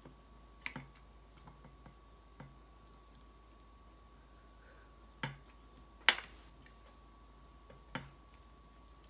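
Quiet eating sounds: a few scattered sharp clicks and mouth noises, the loudest click about six seconds in, over a faint steady high hum.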